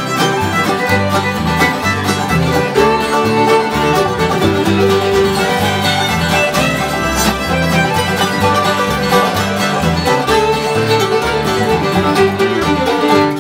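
Acoustic bluegrass band playing an instrumental tune: banjo, fiddle, mandolin and acoustic guitars over a plucked upright bass, with a steady driving rhythm.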